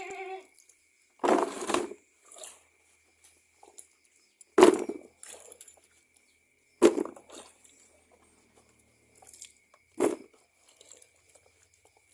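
A cow eating from its feed, four short noisy bursts a few seconds apart.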